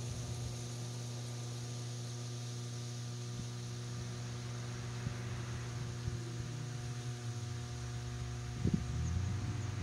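A steady low hum with faint, unchanging tones above it; a low rumble grows slightly near the end.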